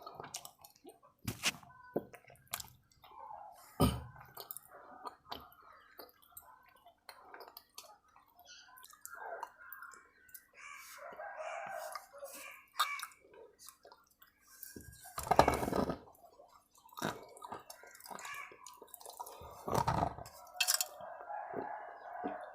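Close mouth sounds of someone eating water-soaked chalk: irregular crunches, clicks and wet crackles of chewing, loudest in two clusters about 15 and 20 seconds in. Softer chattering sounds in the background, which a tagger takes for hens clucking, come and go between them.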